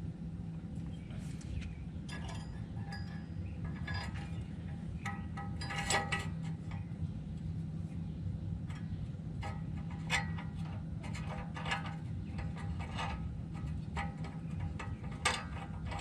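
Tools and metal parts clinking and tapping against a Jeep Wrangler's exhaust pipe while a muffler clamp is fitted: irregular short metallic knocks, each ringing briefly, some in quick clusters.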